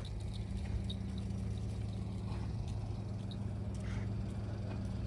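A steady low hum, with a few faint ticks about a second in and again near four seconds.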